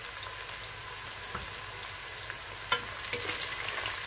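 Sliced onions sizzling steadily in hot oil in a metal pressure-cooker pot while a wooden spoon stirs them, scraping and tapping against the pot. A sharp knock comes a little under three seconds in, and the crackle gets busier near the end.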